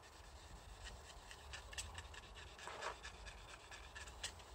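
Sanding block rubbed by hand over the wet, painted boat hull: quiet, irregular scratchy strokes, with one longer rub near three seconds in.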